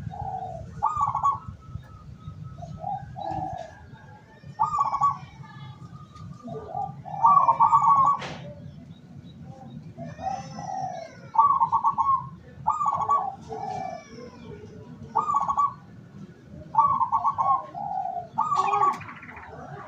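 Zebra doves (perkutut) cooing, at least two birds at slightly different pitches answering one another with a short coo phrase every second or two. Faint thin chirps of small birds are heard above them.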